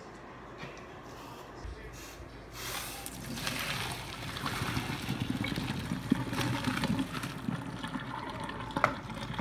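Boiling pasta water poured from a cooking pot into a metal colander in a stainless steel sink, splashing and draining, starting about two and a half seconds in. A sharp clink near the end.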